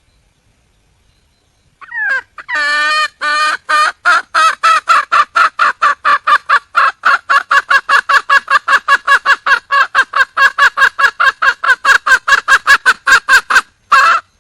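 Red junglefowl hen calling for a mate: after about two seconds of quiet, a falling note and a few drawn-out notes, then a long, even run of short clucking notes, about four a second, with one last note near the end.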